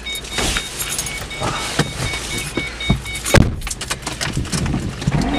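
A person climbing into a Ford Mustang's driver seat: clicks, knocks and rustling, with the car's warning chime beeping steadily, then a loud thump about three and a half seconds in as the door shuts.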